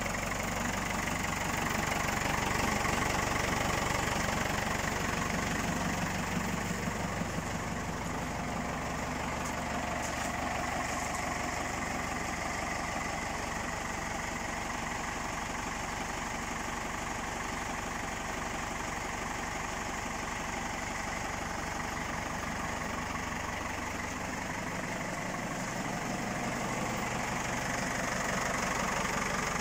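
Ford 5000 Super tractor's engine idling steadily.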